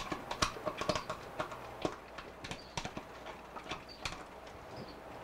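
A spoon knocking and scraping against a measuring cup and a glass mixing bowl as thick canned pumpkin is scooped out: an irregular run of sharp clicks and taps, busiest in the first two seconds.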